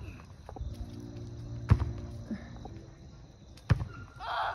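Two sharp thuds of a soccer ball, about two seconds apart, with a low steady hum for a second or so between them.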